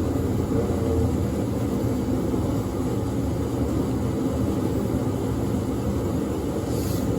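A steady low mechanical hum, even in level, with a brief soft hiss near the end.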